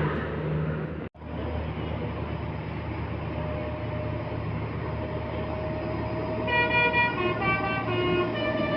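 Steady rumble of a bus engine and road traffic, cutting out for an instant about a second in. About two-thirds of the way through, a bus's Basuri telolet horn starts playing a melody of stepping notes.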